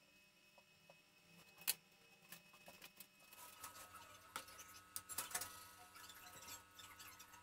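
Quiet small clicks and taps from handling light objects on a tabletop, with one sharper click about two seconds in. A faint steady background hiss comes in about three seconds in, with a few more clicks after it.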